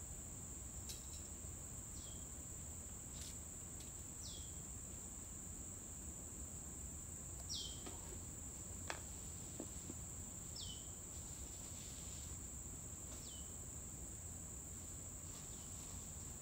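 Steady high-pitched insect trill, with a short falling call repeated every two to three seconds and a few faint clicks about halfway through.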